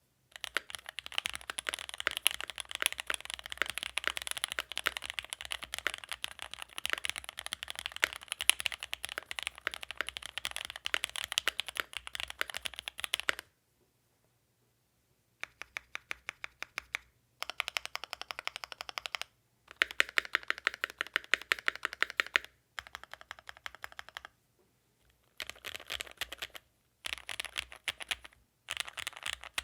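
Typing on a Keychron Q2 aluminium mechanical keyboard with Ice Mint linear switches and Drop DCX ABS keycaps: fast, continuous key clacks for about thirteen seconds, a pause of about two seconds, then several shorter bursts of typing with brief gaps between them.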